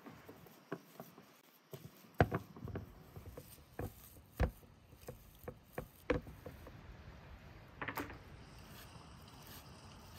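A wooden spoon stirring a thick, crumbly mixture in a glass bowl, with irregular knocks and taps of the spoon against the bowl and a brief crackle near the end.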